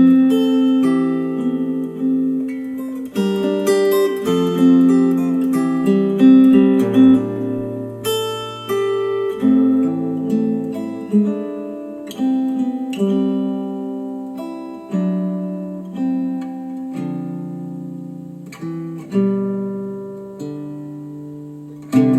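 Acoustic guitar music: strummed chords, each struck and left to ring and fade, changing every second or two, played back through KEF Q350 hi-fi speakers.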